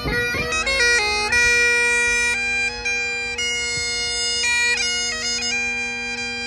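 Great Highland bagpipe playing a tune: the chanter's melody steps from note to note over the steady, unbroken drones.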